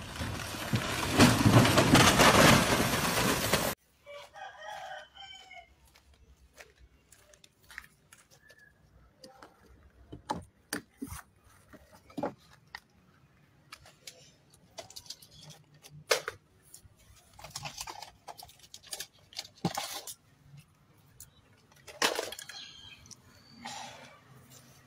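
Loud, dense crashing clatter lasting about four seconds, as a shrink-wrapped stack of drink cans topples off a flatbed truck; it cuts off abruptly. A short wavering call follows, then scattered faint clicks and knocks.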